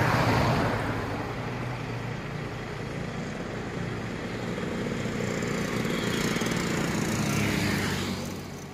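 Road traffic of motorcycles and a car passing by, engines swelling and fading. One passes loudest right at the start, and a motor scooter passes close near the end.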